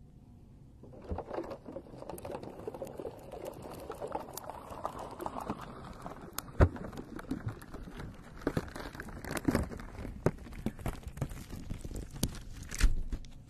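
Long acrylic nails scratching and rubbing over a microphone's cover, close to the mic: a continuous crackly rustle dotted with sharp clicks, starting about a second in.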